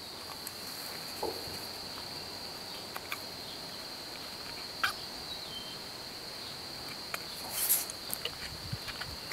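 Steady high-pitched insect drone, like crickets chirring, with scattered light clicks and taps over it.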